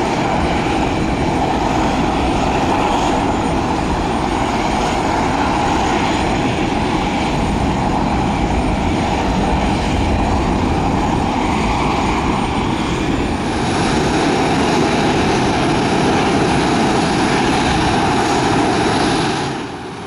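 Boeing 737-500's CFM56 turbofan engines running at taxi power as the jet rolls past close by: a steady rush with a whining tone. It grows a little louder about two-thirds of the way through and drops off abruptly near the end.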